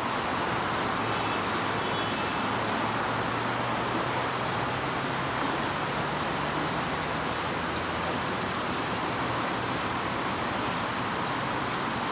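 Illuminated city fountain's water jets splashing and falling back in a steady, even rush. A faint low hum sits underneath for the first several seconds.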